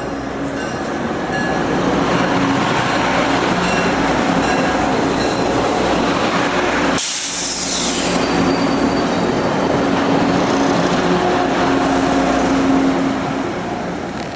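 Budd RDC diesel railcar train running, a steady engine drone mixed with rail noise. About halfway through the sound breaks off sharply and a brief high hiss follows before the steady running sound resumes.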